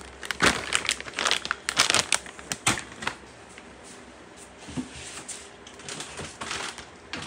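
Plastic-bagged parts and packing paper crinkling and rustling as hands rummage in a cardboard shipping box. A quick run of sharp crackles comes in the first three seconds, then quieter, scattered rustling.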